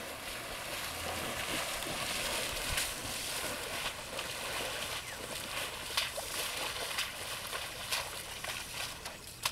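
Asian elephant wading through a shallow river, its legs sloshing and splashing through the water with each step, with a few sharper splashes in the second half.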